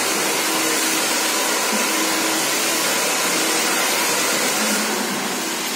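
Handheld hair dryer blowing steadily: a loud, even rush of air with a faint steady motor whine under it.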